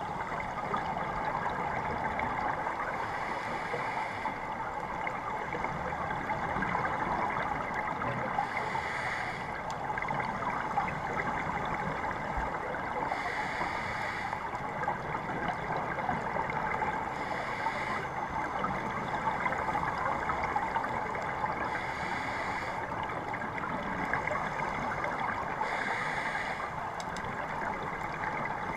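A steady underwater hiss with bursts of bubbling every four to five seconds: a scuba diver breathing out through a regulator.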